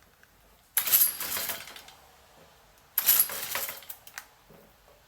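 Two pulls on the recoil starter of a Stihl FS 55 R two-stroke string trimmer on choke, each a rattling whir about a second long, the second coming about two seconds after the first; the engine does not catch. The mechanic suspects bad rings and no compression.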